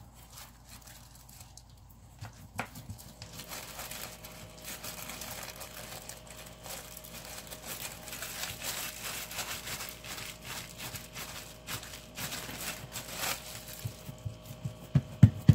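Plastic sheet crinkling and rustling under hands pressing and smoothing a flat disc of wet bulgur kibbeh dough. It is faint at first and becomes a steady rustle of small crackles after about three seconds, with a few sharper crinkles near the end.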